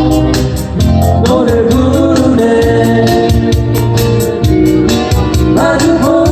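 Live band playing a pop ballad: organ-toned electronic keyboard over drums with a steady hi-hat beat, and a voice singing the melody.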